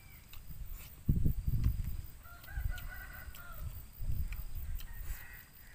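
A rooster crows once, a wavering call starting a little over two seconds in and lasting about a second, over bouts of low rumbling noise.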